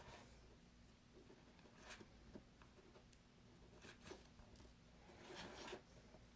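Faint scraping and light clicks of small repair tools working on a phone's parts: a few short scratches and a longer one near the end.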